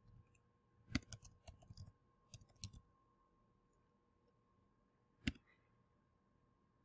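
Faint computer keyboard typing: a quick run of keystrokes about a second in, then a single click about five seconds in.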